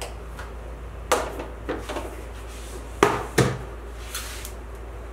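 A few knocks and clatters of kitchen things being handled: a plastic spice box closed and set aside, spoon and utensils knocking. The two loudest come close together about three seconds in.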